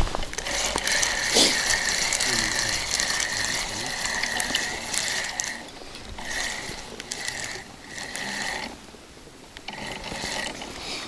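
Fishing reel whirring as it turns, in one long spell of about five seconds followed by a few shorter spells with brief pauses between them.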